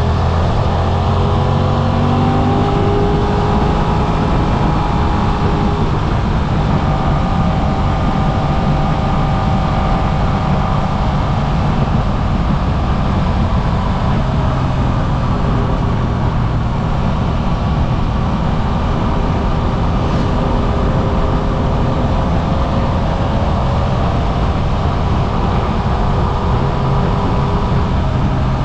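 Suzuki V-Strom 800RE's parallel-twin engine running on the move, its pitch rising and falling gently with the throttle, under heavy wind rush on the cockpit-mounted microphone.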